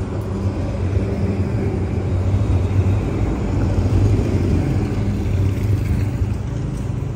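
Electric tram passing close by on street-level tracks: a steady low rumble and hum that swells about three to four seconds in, then eases off.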